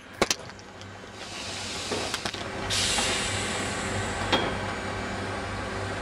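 A passenger train standing at a platform: a steady low hum, a couple of sharp clunks near the start, then a hiss of compressed air that grows and turns loud about three seconds in, with another click about a second later.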